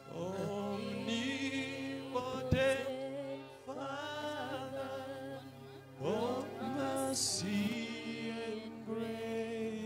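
A man singing a slow worship chorus through a microphone and PA, with long held notes that slide between pitches. There is one sharp knock about two and a half seconds in.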